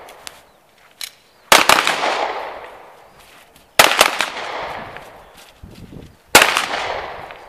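Glock 17 9 mm pistol firing three loud shots about two and a half seconds apart, each trailing off in a long echo.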